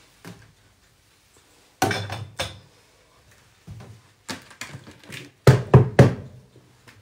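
Knocks and clatter of plastic kitchenware, a large bowl and cups, being handled and set down on a kitchen counter. There is a short burst of clatter about two seconds in and a run of louder knocks near the end.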